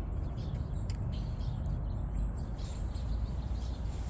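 Faint, thin, very high-pitched bird chirps now and then over a steady low rumbling background noise.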